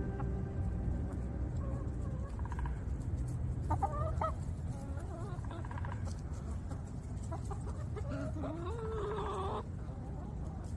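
A flock of hens clucking. There is a short run of calls about four seconds in, and one longer, drawn-out hen call that rises in pitch about eight seconds in.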